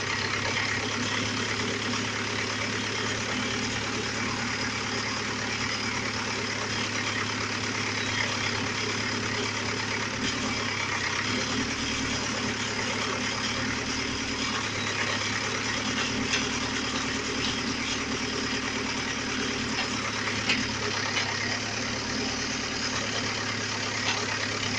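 Zetor 7745 tractor's four-cylinder diesel engine running steadily while driving the hydraulics of a forestry trailer's log crane; its low note shifts for a while in the middle as the crane works. A few light knocks stand out over it.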